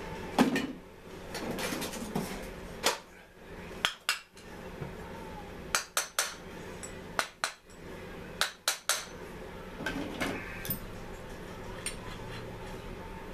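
Small metal engine parts and hand tools clinking and knocking against each other and the workbench as a Mantis tiller engine is put back together. There are about a dozen sharp metallic clicks at irregular intervals, several in quick pairs.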